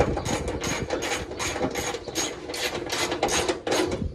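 Hand socket ratchet clicking in quick, even strokes, about three clicks a second, as a hinge bolt is run in.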